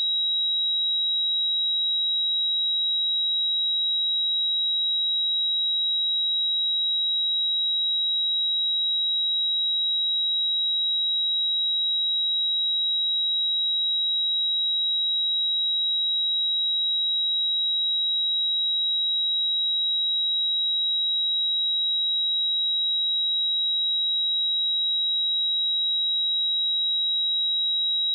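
Pure sine-wave test tone at 3844 Hz, a single steady high-pitched tone held at constant level.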